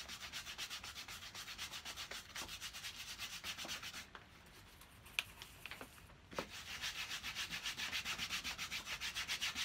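Black boot polish being rubbed into red leather by hand, quick back-and-forth strokes making a rhythmic scuffing of about five strokes a second. The rubbing stops for about two seconds midway, with a few light clicks, then starts again.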